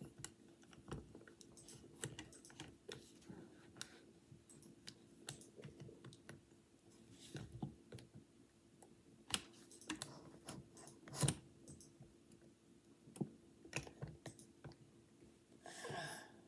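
Faint, irregular clicks and taps of hands handling a smartphone, over a low steady hum.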